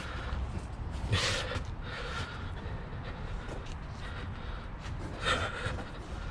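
A man breathing hard and gasping from the strain of forcing a tire bead over the rim with tire spoons, with two louder breaths, about a second in and about five seconds in.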